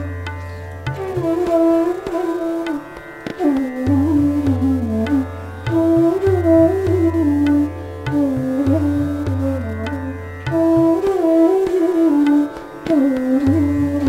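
Bansuri (D-base bamboo flute) playing a winding melodic line of Raag Megh Malhar over a steady drone. Tabla accompanies in medium-tempo tintal, with repeated deep bass strokes.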